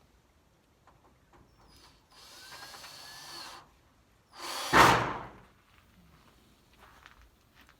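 Power drill run in two short bursts, the second shorter and much louder.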